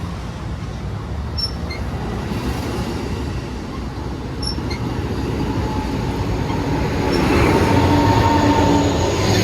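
Amtrak Pacific Surfliner passenger train rolling past: a steady rumble of wheels on rail and moving cars, with a few faint ticks. A thin steady whine of wheel squeal rises as the sound swells, about seven seconds in.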